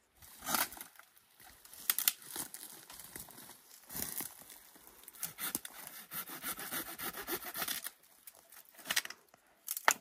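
Pine branches being cut and snapped off during pruning: sharp cracks of wood, with a run of quick rasping strokes from about five to eight seconds in.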